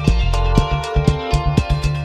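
Background music with a steady beat, a bass line and regular percussion hits.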